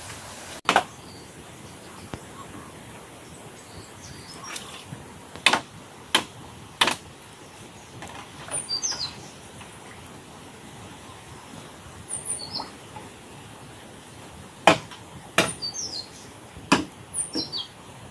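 Small birds chirping in short, high, falling calls over a steady outdoor background hiss, with about seven sharp knocks scattered through, the loudest in the latter half.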